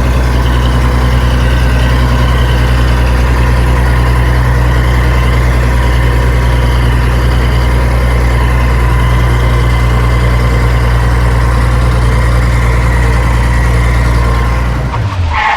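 Engine idling steadily, a low drone with a faint steady whine above it, cutting off just before the end.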